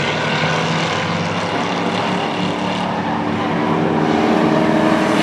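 A pack of short-track stock cars racing past together, several engines running at high revs in a steady drone. Near the end the engine pitch climbs slightly and the sound grows a little louder.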